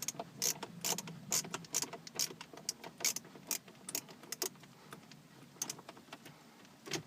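Phillips screwdriver backing screws out of a car's plastic HVAC control panel: a run of small, sharp clicks about two a second, thinning out after about four and a half seconds.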